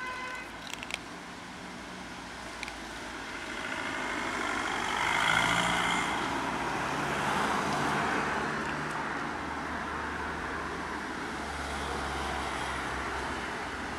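A motor vehicle drives past on the street, swelling to its loudest about five seconds in, then steady road-traffic rumble.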